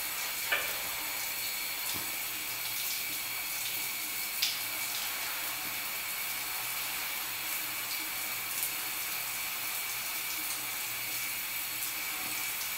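Shower water running steadily in a tiled shower stall, with a couple of brief sharp sounds about half a second and four and a half seconds in.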